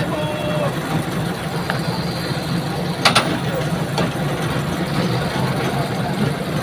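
Heavy crane truck's diesel engine running steadily, with a single sharp knock about three seconds in.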